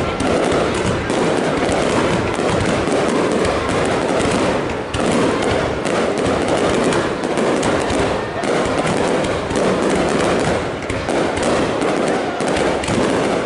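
Aerial fireworks going off in a dense, continuous barrage of bangs and crackling, with no pause.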